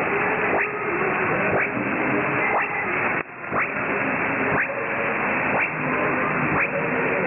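Weak shortwave signal on 4810 kHz received in lower sideband: loud hiss and static, with faint music tones buried under it. A short rising chirp of interference cuts through about once a second, and the signal briefly dips about three seconds in.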